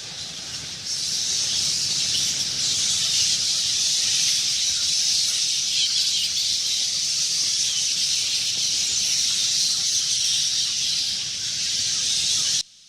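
A swarm of bats chittering: a dense mass of high-pitched squeaks and flutter. It gets louder about a second in and cuts off suddenly near the end.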